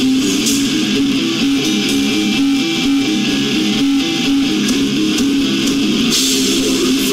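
Death metal band playing live: distorted electric guitar and bass picking a fast riff with repeated, shifting notes over drums. About six seconds in the cymbals come in louder.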